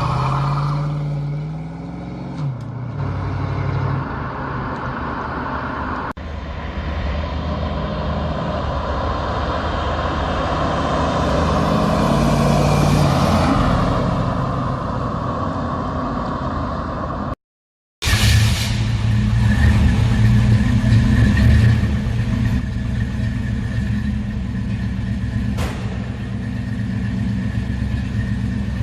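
1969 Ford Mustang engine running through its exhaust, with a rev that rises and falls in pitch in the first couple of seconds, then steady running. The sound cuts out for a moment about seventeen seconds in and returns as a deep, steady engine note.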